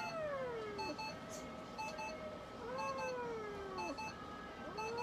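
Mixed-breed domestic cat meowing three times in long, drawn-out cries, each rising briefly and then falling in pitch. Steady, evenly repeating electronic beeping sounds underneath.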